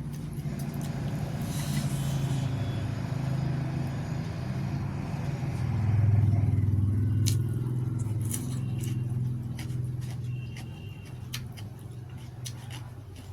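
JCB backhoe loader's diesel engine running, a steady low drone that swells about six seconds in and then eases off. Several sharp clicks sound over the second half.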